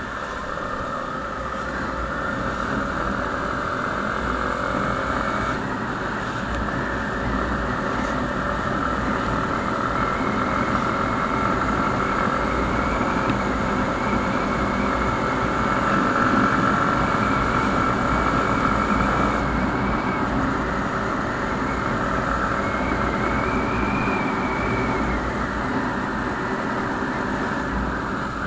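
Motorcycle engine running at a steady cruise, its note stepping up once about five seconds in, with low wind rumble on the helmet or bike-mounted microphone.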